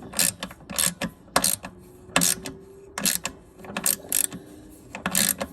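Ratchet wrench clicking in short, irregular runs of strokes as a bolt is snugged down on the mower's blade brake cable mount.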